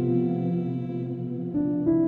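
Background music: slow, soft ambient instrumental with sustained notes, changing note about one and a half seconds in and again near the end.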